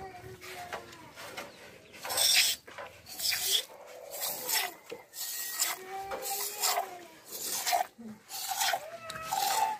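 Hand-milking a water buffalo: milk squirting from the teat into a small steel cup, one short spraying squirt about every second.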